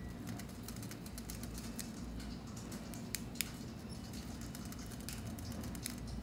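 Faint scratching and light clicks of a small screwdriver turning screws out of a small plastic RC helicopter body, with a few sharper ticks, two of them about three seconds in.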